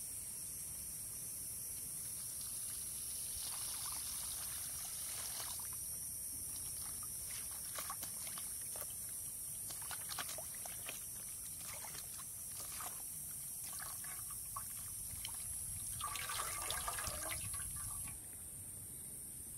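Water splashing and dripping as enoki mushrooms are rinsed and squeezed by hand in a metal wok, in uneven splashes with a louder stretch near the end.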